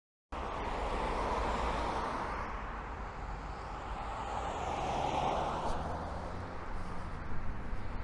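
Street traffic: cars and a scooter passing on an urban road, a steady hum of road noise that swells twice as vehicles go by.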